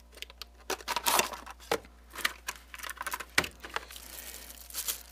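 Unboxing a cardboard gift box and pulling out a plastic-wrapped power bank: irregular crinkling and rustling of the plastic sleeve with small clicks and scrapes of the cardboard.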